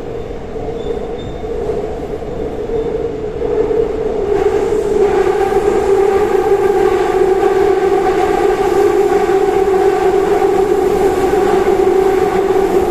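Seoul Line 4 VVVF 4000-series electric train with Daewoo–Alstom GTO inverter equipment, running between stations and heard from on board: steady running noise with a droning tone. It grows louder about four to five seconds in, as a second, higher tone joins.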